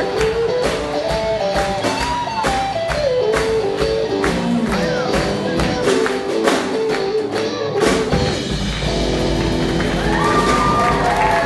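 Live rock instrumental on electric guitar and a Sonor drum kit: a lead guitar melody over a steady drumbeat. A loud hit comes about eight seconds in, after which the guitar holds long bending notes.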